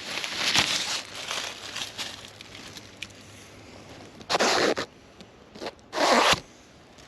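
Zipper on a nylon hammock tent pulled in two quick strokes about four and six seconds in, after some fabric rustling.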